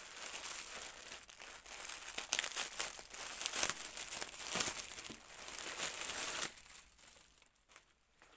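Thin clear plastic bag around a new towel crinkling and rustling as it is handled and opened; the crinkling stops about six and a half seconds in.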